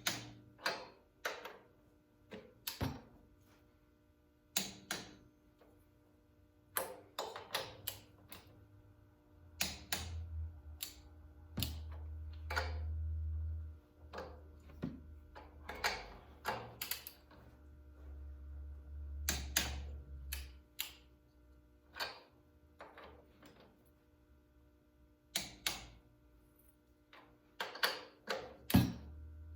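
Click-type torque wrench ratcheting and clicking as the cylinder-head bolts are tightened to 30 foot-pounds: irregular sharp clicks, some in quick runs. A low hum comes and goes in the middle.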